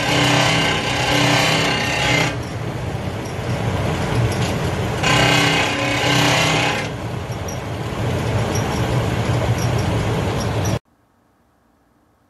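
COSTWAY portable electric clothes dryer running with a loud mechanical noise, a rough hum that swells for the first two seconds and again about five seconds in. It cuts off suddenly near the end.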